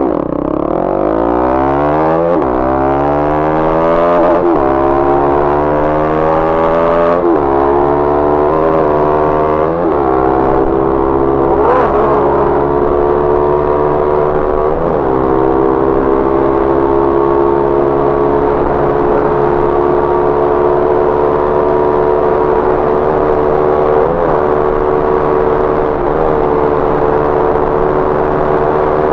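Bajaj Pulsar NS200's single-cylinder engine through an aftermarket Akrapovic exhaust, pulling away hard and rising in pitch through several upshifts. It then settles into a steady cruise after about fifteen seconds.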